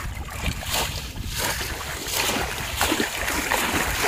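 Shallow river water splashing and sloshing as bamboo polo fish traps are plunged down into it again and again by people wading, in a quick irregular run of splashes that gets busier after about a second and a half.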